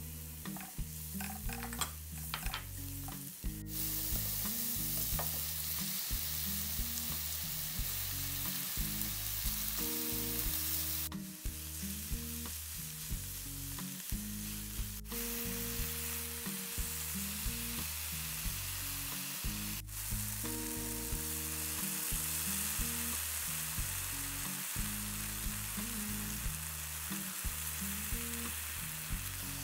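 Oil sizzling in a frying pan as chopped onion and then oyster mushrooms sauté and are stirred with a spatula. The sizzle breaks off abruptly a few times at edits. Background music with a steady low bass line plays underneath.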